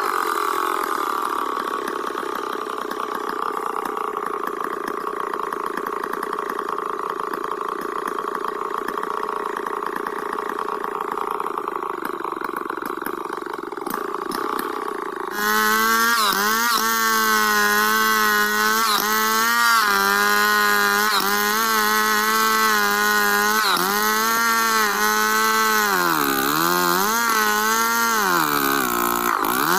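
Stihl 070 two-stroke chainsaw ripping lengthwise through a log in freehand milling, held at high revs under load. About halfway through the engine note turns suddenly louder and sharper, its pitch wavering as the saw bogs in the cut and picks up again, dipping deepest near the end.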